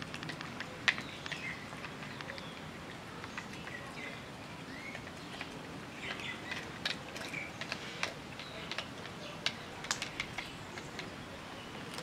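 Small birds chirping on and off over a steady outdoor background hiss, with scattered short, sharp clicks and taps throughout.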